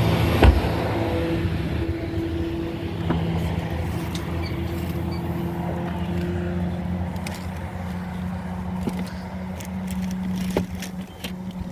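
A steady low mechanical hum, with one sharp thump about half a second in and a few light clicks later.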